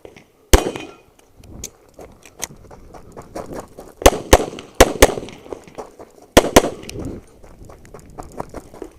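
Handgun shots fired in quick succession during a practical shooting stage: one shot near the start, then pairs of shots about four and five seconds in and another pair past six seconds, with fainter cracks between.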